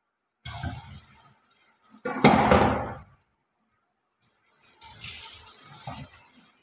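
Kitchen cookware noises around a pan of chilli chicken cooking down on a gas hob: scattered knocks, then a loud clatter about two seconds in that dies away over a second. Hiss and light knocks follow near the end.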